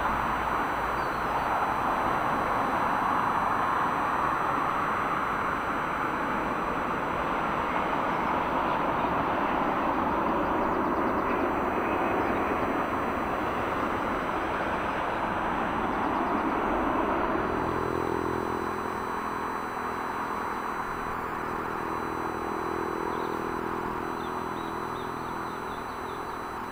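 Jet airliner arriving to land, its engines a steady rushing roar that slowly fades. About two-thirds of the way through, a low engine hum with several steady tones comes in under the rush.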